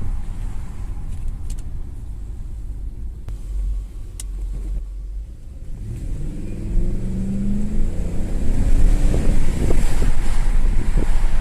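2001 Audi A8L driving, with a steady low road rumble and a few sharp clicks in the first half, typical of the car's clicking over bumps. About halfway through, the engine accelerates and its pitch rises, and the rumble gets louder with some irregular thumps.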